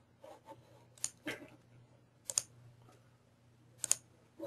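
A few sharp, separate clicks of a computer mouse and keyboard, spaced a second or more apart, with fainter ticks between.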